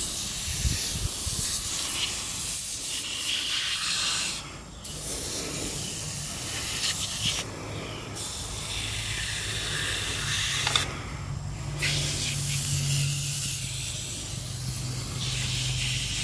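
Aerosol can of foaming oven cleaner spraying in long hissing bursts, with short breaks about every three to four seconds as the nozzle is released and pressed again.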